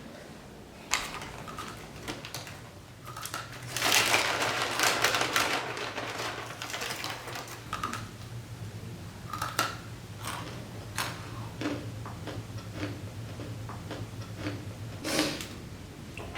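Close-miked eating sounds of spicy instant noodles: a string of small wet mouth clicks from chewing, with a louder rush of sound about four seconds in that lasts a couple of seconds.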